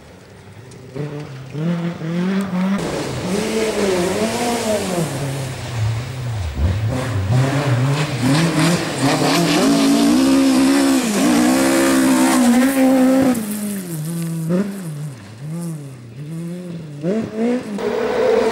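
Rally car engine revving hard, its pitch climbing and dropping over and over with gear changes and lifts, growing louder as it approaches, then a run of quick revs near the end.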